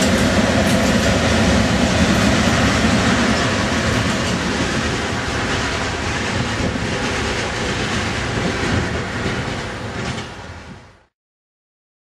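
CSX freight train rolling past, its steel wheels running on the rails in a steady rumble, with the sound fading out to nothing near the end.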